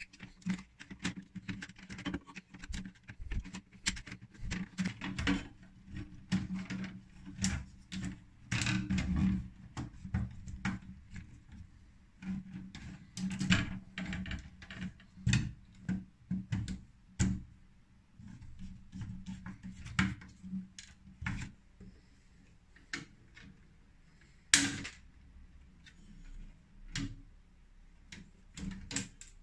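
Handling noise of electrical wiring work: irregular clicks, taps and scrapes of wires, a screwdriver and pliers against plastic terminal blocks and the metal DIN rail of a distribution panel. One sharper click stands out about 25 seconds in.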